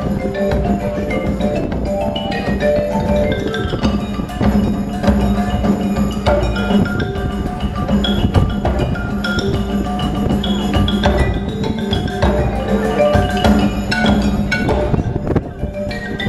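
A live percussion ensemble playing: quick runs of pitched mallet notes on marimbas and other tuned percussion, with drum and wood-block strokes, over a steady low note.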